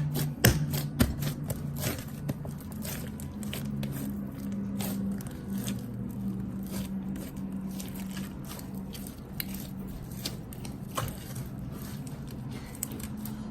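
Slime being kneaded and mixed by hand, giving an irregular run of wet squishing, clicking and popping sounds.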